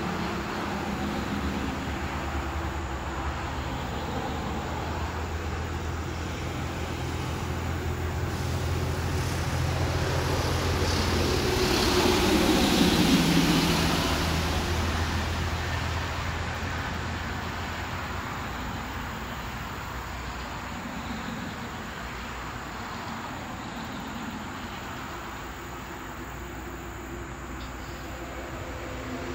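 A motor vehicle passing at a distance: a steady low engine hum swells to a peak about halfway through, its pitch dropping as it goes by, then fades back to a low rumble.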